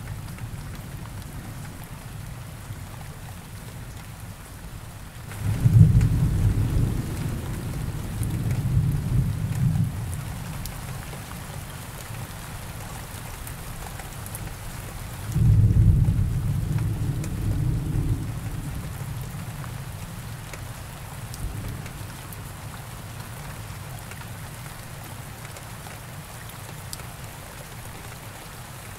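Steady rain falling, with two low rolls of thunder, one starting about six seconds in and another about halfway through, each rumbling for a few seconds before fading.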